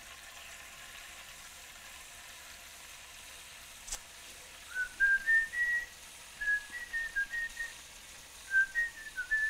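Kitchen faucet running into a bowl, a faint steady hiss of water. About five seconds in a person starts whistling a tune of short notes that step up and down, and it is the loudest sound.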